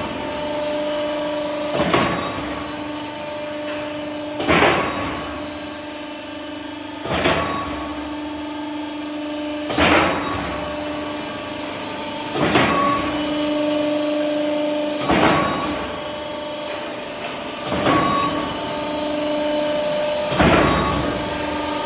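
Electric concrete pump running, with a steady motor hum and a brief whooshing surge about every two and a half seconds as the pumping stroke changes over.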